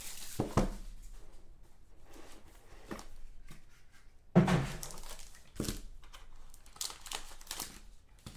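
Cardboard trading-card box handled and opened by hand: rustling and crinkling of card and packaging, a knock early on and a sudden loud thump about four seconds in.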